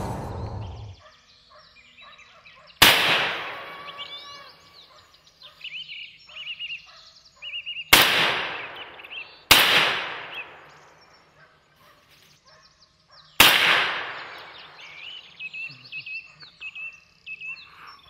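Four hunting rifle shots fired at a running wild boar. Each is a sharp crack followed by a long echo through the forest, the second and third about a second and a half apart. Faint short, high calls sound in between.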